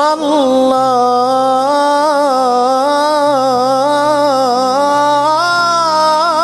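A male singer's voice holding long, wavering, ornamented notes in an Egyptian song, with a faint steady drone beneath and little other accompaniment.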